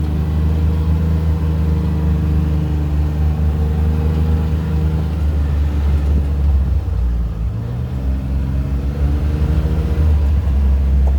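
An ATV engine running while riding along. Its note sags about halfway through, then picks up again.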